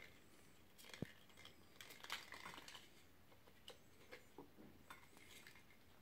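Faint, scattered clicks and scratchy rustles of a kitten's claws skittering on a hard stone floor as it bats a crumpled foil ball, with one sharp tick about a second in and a busier patch of scrabbling around two seconds.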